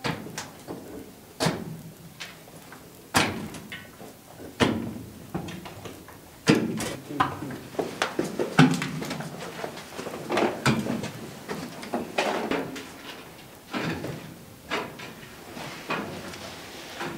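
Shovel knocking and scraping into earth and stones, one stroke about every one and a half to two seconds, echoing in a rock-cut tomb.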